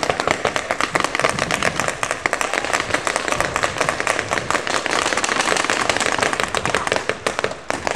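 Several paintball markers firing rapidly at once: a dense crackle of overlapping sharp pops, easing slightly near the end.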